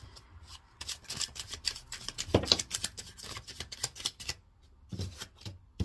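A deck of playing cards being shuffled and handled by hand: a quick run of crisp card snaps and flicks for about three and a half seconds, then a few more near the end.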